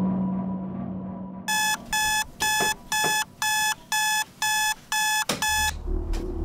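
Digital alarm clock beeping, about two short electronic beeps a second, nine in all, then cutting off just after a single knock near the end.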